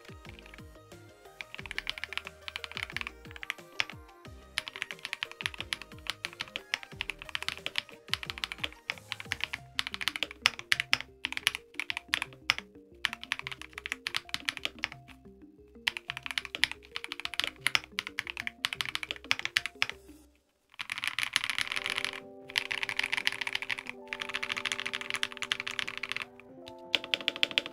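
Fast typing on a KBD67 Lite R3 mechanical keyboard with GUGU ICE switches in a translucent plastic case: a dense run of key clacks. The typing drops out briefly about two-thirds of the way through, then picks up again louder.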